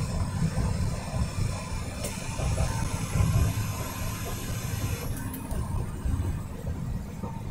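Steady low engine and road rumble inside the cab of a vehicle cruising on a highway. A faint high whine rises about two seconds in and fades after about five seconds.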